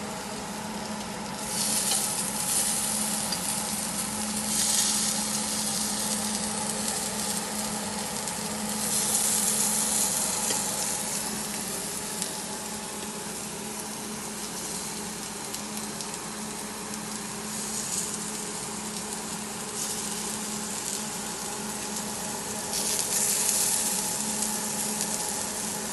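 Butter and cubes of herb-seasoned cobia sizzling on a hot ridged stovetop grill pan. The sizzle swells louder several times, over a steady low hum.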